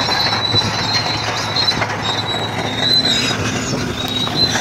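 A high metallic squeal that comes and goes over a steady low hum.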